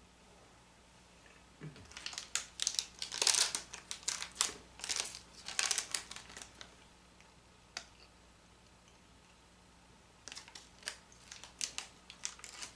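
A small wrapper crinkling as it is handled. The crinkling comes in two spells of dense crackling, a longer one from about two seconds in and a shorter one near the end, with a single click between them.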